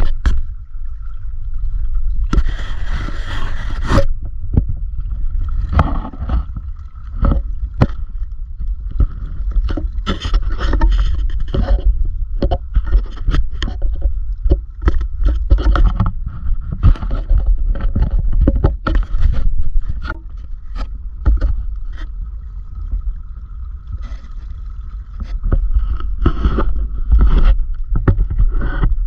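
Wind buffeting the microphone of a camera mounted on a swaying fishing rod, with frequent knocks and scrapes from the rod and mount, and a longer scrape about two seconds in.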